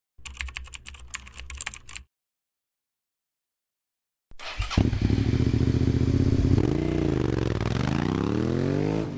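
A short burst of rapid clicking and clatter, then silence, then a motorcycle engine running loudly from about four seconds in, its pitch dipping and then climbing as it accelerates.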